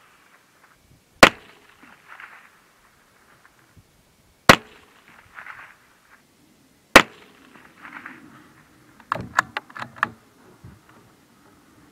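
Three single shots from an Anschutz 1761 bolt-action rifle firing high-velocity .22 LR, each a sharp crack, with a faint short noise following each under a second later. Near the end comes a quick run of metallic clicks and clacks as the bolt is cycled.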